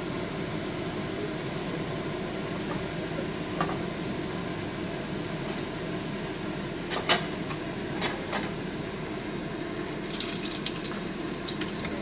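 Steady hiss of a gas burner under a frying pan of heating oil, with a few light clicks and, near the end, a patter of small crackles as the oil starts to sizzle.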